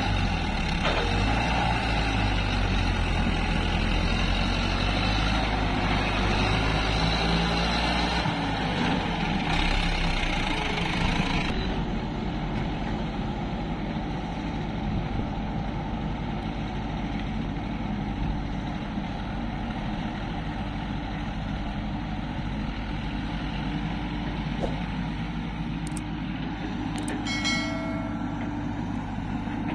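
Diesel engines of farm tractors and a hydraulic crawler excavator running steadily while the excavator digs and loads mud. The sound shifts about a third of the way in, and a brief high pitched tone sounds near the end.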